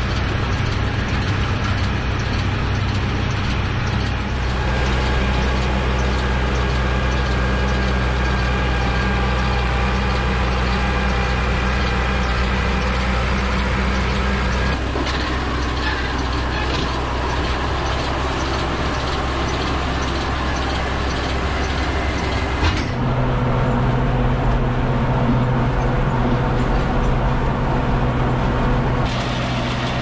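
Ford 6640 tractor's diesel engine running steadily under load as it pulls a Welger round baler through hay, with the baler's machinery working. The sound changes abruptly about halfway and again about three-quarters of the way through.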